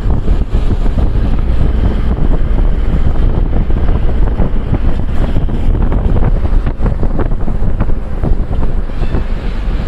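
Loud wind buffeting the microphone: a deep, continuous rumble with many short crackles through it.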